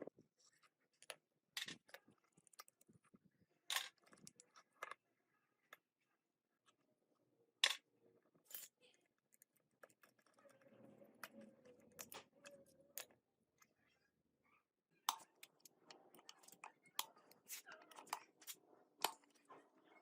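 Sparse sharp metallic clicks and knocks of gearbox parts and hand tools being handled and set down, with softer handling noise between them.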